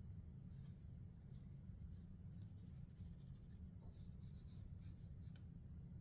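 Faint scratchy rubbing of a paper towel wiping down a Glock pistol's slide, in irregular short strokes.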